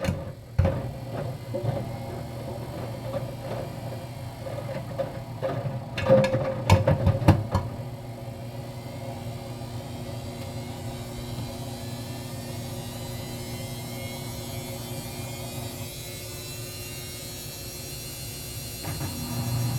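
GE washer-dryer running: irregular knocks and clatter for the first several seconds, then a steady motor hum.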